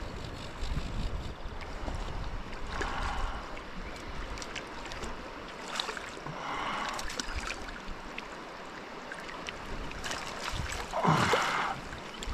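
River water running steadily, with three bursts of splashing about three, six and eleven seconds in; the last is the loudest.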